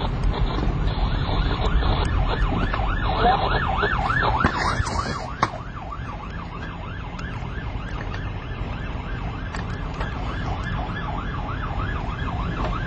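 Police car siren on a fast yelp, about three rising-and-falling sweeps a second, loudest a few seconds in and fainter after about five and a half seconds, over a low vehicle rumble.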